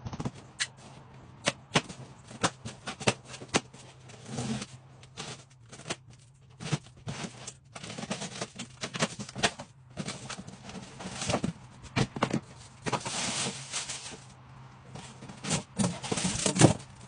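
Cardboard box being unpacked by hand: a long irregular run of sharp clicks and snaps as its plastic packing straps are cut and pulled away, then longer scraping and tearing of cardboard and packing as the flaps are opened near the end.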